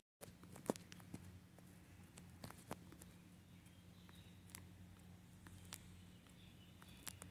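Near silence: a faint steady low hum with a few scattered faint clicks.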